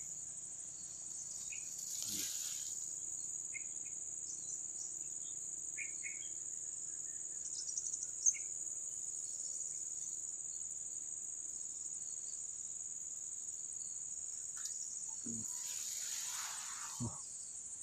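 Steady, shrill chorus of insects in the waterside grass, one unbroken high-pitched drone. Brief rustling noises come about two seconds in and again near the end, with a single click near the middle.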